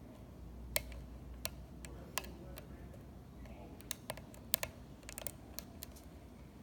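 Light, irregular clicks of a thick lock pick working the pins inside a small, cheap, cruddy lock, sounding about every quarter to half second at uneven intervals.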